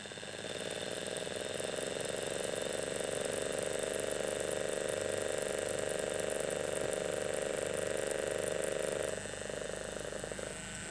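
StylPro Squeeze makeup-sponge cleaner's electric motor whirring as it spins a washed makeup sponge to spin it dry: it runs up over the first second or two, holds a steady whir, then drops off about nine seconds in as it winds down.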